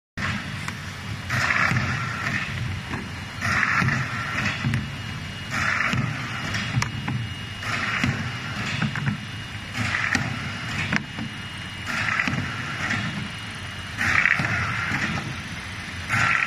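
Paper tube (paper core) making machine running: a steady low mechanical drone with a noisy burst about every two seconds, the machine's repeating working cycle.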